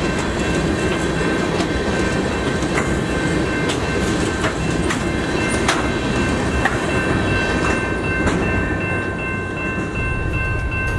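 Freight train rolling through a grade crossing: a steady rumble with the wheels clicking over rail joints about once a second. Steady high tones from the crossing signal's bell ring over it.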